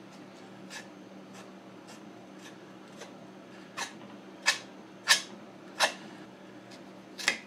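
Plastic spreader scraping and dabbing Bondo body filler onto a rifle stock, a series of short strokes, faint at first and sharper from about four seconds in.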